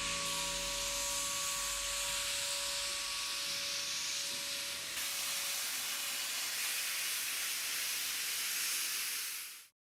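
Steady hiss of escaping steam from a steam locomotive, with a faint hum under it in the first half, fading out near the end.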